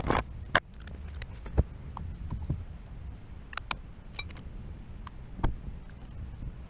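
Scattered sharp clicks and knocks, several loud ones near the start and one about five and a half seconds in, over a low steady rumble.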